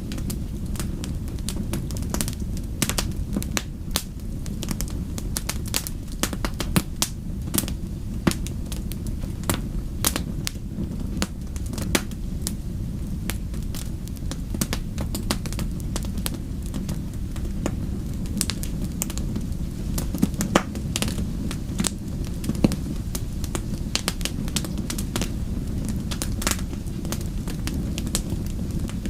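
Wood fire in a fireplace crackling, with frequent irregular sharp pops over a steady low rush of the flames.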